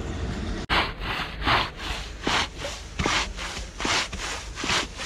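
Rhythmic rasping strokes, about three every two seconds, of piray bish fish-poison plant being ground by hand. They begin after a sudden cut a little under a second in.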